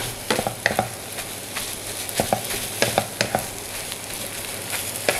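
Nasi goreng being stir-fried in coconut oil in a wok: a steady sizzle under the repeated scraping and tapping of a wooden spatula against the pan as the rice is tossed.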